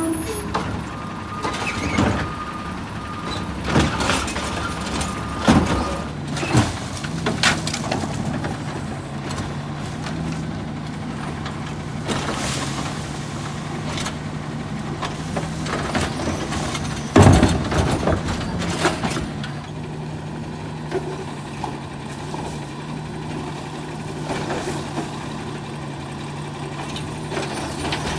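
Side-loader garbage truck running steadily while its automated arm lifts and tips wheeled carts into the hopper, with repeated clanks and bangs as the carts knock against the truck and trash drops in. The loudest bang comes about 17 seconds in.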